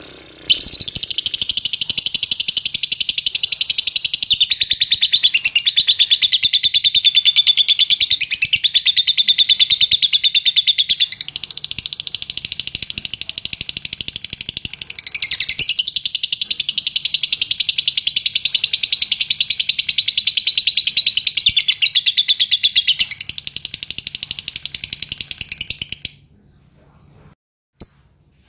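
Fischer's lovebird singing one long, unbroken, rapid chattering trill. It goes softer for a few seconds in the middle and again toward the end, then stops abruptly about two seconds before the end. This is the drawn-out song that contest lovebirds are prized for.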